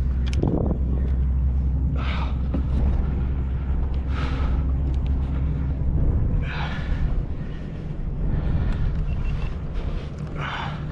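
Wind buffeting the microphone with a heavy low rumble that eases about halfway through. Over it come a few short, breathy noise bursts spaced a couple of seconds apart.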